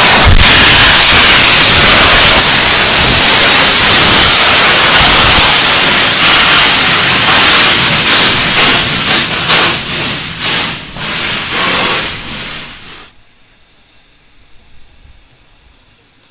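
BR Standard Class 4 tank locomotive 80136 blowing off steam: a loud, continuous hiss of steam that breaks into uneven pulses about eight seconds in as the engine moves past, then stops abruptly around thirteen seconds in.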